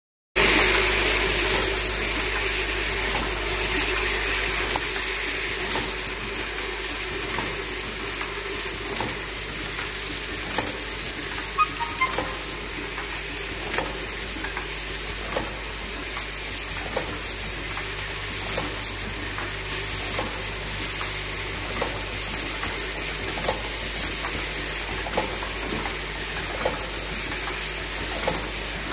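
Automatic terminal-block assembly machine running: a steady hiss and hum with a sharp click about every second and a half as it cycles.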